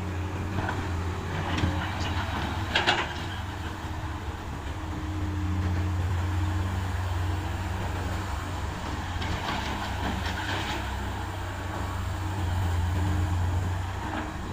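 Komatsu PC200 excavator's diesel engine running steadily as it works, with sharp metallic clanks about three seconds in and a stretch of clattering around ten seconds.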